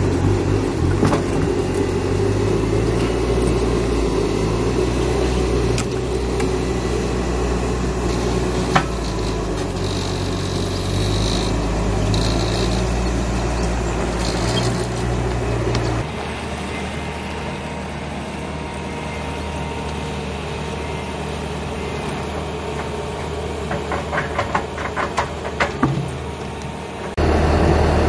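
Bobcat T650 compact track loader's diesel engine running steadily while it moves logs with its grapple. About halfway through, the sound cuts to a quieter, steadier engine drone, with a quick run of rattling clicks near the end.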